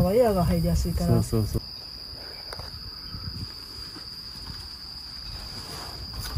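Steady high-pitched insect chorus, one unbroken tone, with a man speaking Japanese for the first second and a half.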